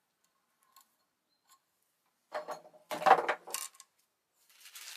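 Metal clinks and knocks from a percussion muzzle-loading double rifle being handled: a few light clicks, then a quick cluster of metallic knocks with a ringing tone about two and a half seconds in, and a soft scraping hiss near the end.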